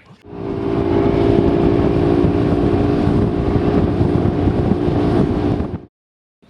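Bass boat's outboard motor running under way at speed, with wind rushing over the microphone; it starts just after the beginning and cuts off suddenly near the end.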